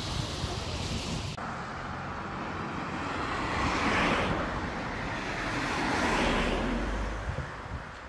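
Traffic on a road: two cars pass one after the other, the first about four seconds in and the second about six seconds in, each swelling and then fading. Before them, for the first second or so, there is wind and surf.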